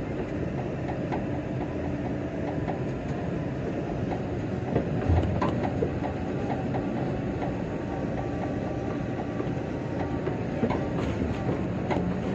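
Tipper truck driving, a steady low rumble with constant rattling and small knocks, and a heavier thump about five seconds in.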